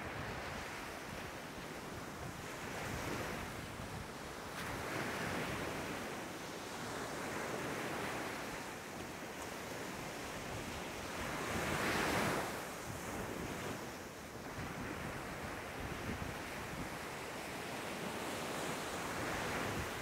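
Small sea waves breaking and washing up a sandy beach, the surf swelling and fading every few seconds, with the biggest wash a little past the middle. Some wind rumbles on the microphone underneath.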